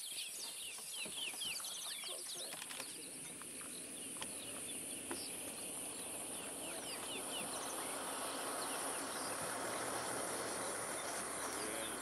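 Birds chirping repeatedly in short, falling notes over a steady high insect buzz. From about halfway a steady rushing noise builds up underneath.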